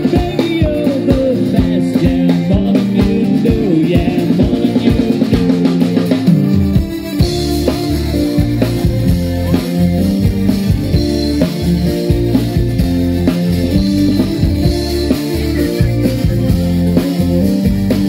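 Live pop-rock band playing through PA loudspeakers with keytar, guitar and drums, recorded too close to a speaker box so the sound is overloaded and choppy. About seven seconds in the bass and drums come in fully and the music gets heavier.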